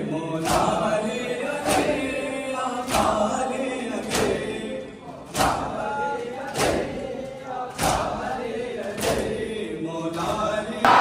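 Crowd of Shia mourners chanting a nauha in unison while beating their chests together in matam, with a sharp collective slap about every 1.2 seconds in time with the chant.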